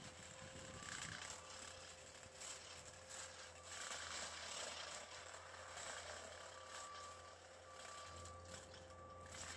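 Skid steer running a hydraulic stump grinder attachment, heard faintly as a steady machine noise with a low hum. A thin high tone comes and goes several times.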